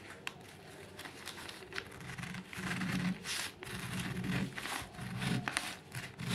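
Scissors cutting through several layers of folded newspaper: a series of short snips with the paper rustling and scraping as it is handled.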